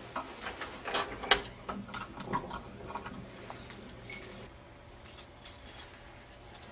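Keys jangling with irregular metallic clicks and rattles at a door lock as a stubborn front door is worked. The clicks come thickest in the first couple of seconds, the sharpest about a second in, then thin out and grow quieter.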